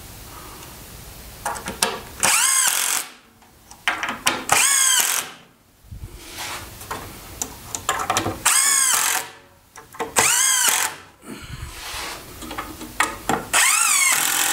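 Handheld drill driving screws into a wooden 2x4 frame: five short runs of motor whine, each about a second long, the pitch bending as each screw is driven in.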